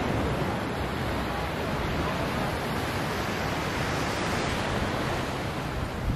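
Surf breaking and washing up the shore, a steady rush of noise, mixed with wind rumbling on the microphone.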